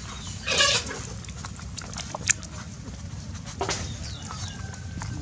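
Puppies jostling to nurse, with a short squealing cry about half a second in and another near the end of the first four seconds, over scattered small clicks and a low rumble.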